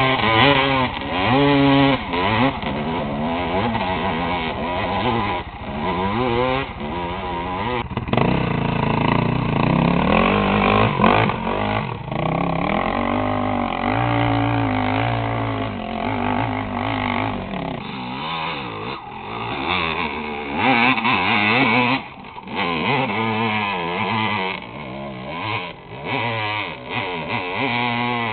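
Dirt bike engine under hard throttle on a steep hill climb, its pitch rising and falling as the revs surge and drop. From about two-thirds of the way through it grows fainter as the bike moves farther off.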